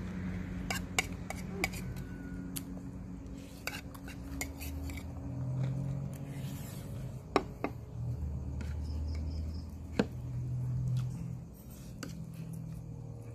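Spoons and forks clinking against plates and bowls during a meal, in irregular sharp clicks, a few of them louder. A low steady hum runs underneath.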